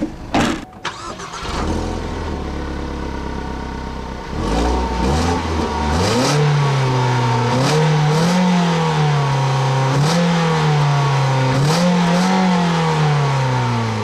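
Exhaust of a 2013 Ford Focus with the 2-litre naturally aspirated direct-injection four-cylinder engine, idling and then revved repeatedly: the engine note rises and falls about four times before dropping back toward idle near the end. A couple of sharp knocks come in the first second.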